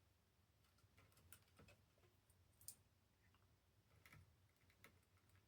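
Near silence with a few faint, scattered clicks, the loudest nearly three seconds in: a small screwdriver driving the tiny bracket screws that hold an SSD in a laptop's drive bay.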